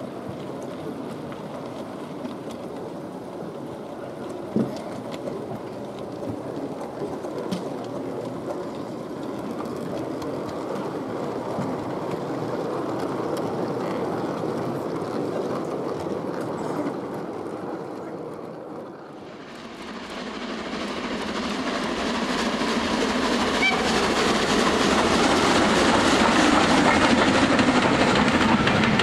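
0 gauge model goods trains running on layout track, a steady rumble and clatter of wheels, with one sharp click about four and a half seconds in. About nineteen seconds in the sound dips, then a louder, fuller rumble swells up and holds.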